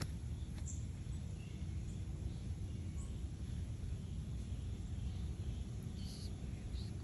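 Outdoor garden ambience: a steady low rumble with a few faint, short, high chirps scattered through it.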